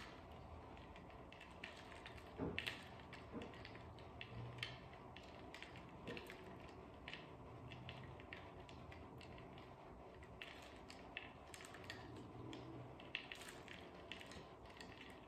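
Faint, irregular clicking and crunching of crushed ice in water, stirred in a plastic bowl around a pipe temperature clamp to hold an ice-bath calibration reference.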